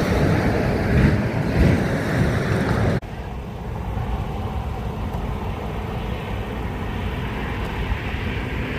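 Outdoor background rumble of road traffic, an even noise heavy in the low end with no siren tone in it. It drops abruptly about three seconds in, then runs on steadily and more quietly.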